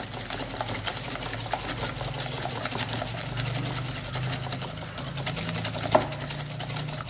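Stainless steel balloon whisk beating eggs into creamed butter and sugar in a glass bowl by hand: a fast, even clatter of the wires against the glass, with one sharper knock about six seconds in.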